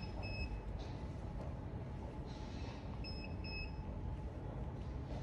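A pair of short, high electronic beeps near the start, repeated about three seconds later, over a steady low rumble of background noise.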